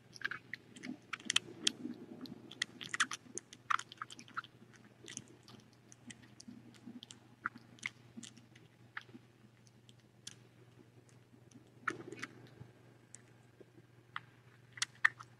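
A young kitten suckling from a nursing bottle's nipple: quick, irregular little wet clicks and smacks. They come thick in the first few seconds, thin out in the middle, and pick up again near the end.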